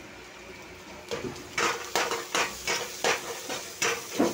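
A metal utensil knocking and scraping in a metal pan, about two to three strokes a second, starting about a second in after a steady hiss.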